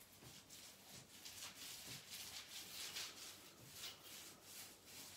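Faint, repeated swishing of a paint roller rolling wallpaper paste onto a plastered wall.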